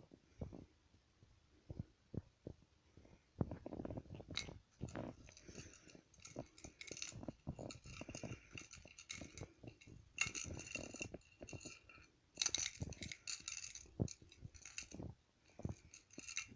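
Small metal jewelry clinking and jingling as it is handled, in irregular clusters, over soft knocks and rubbing from the handling.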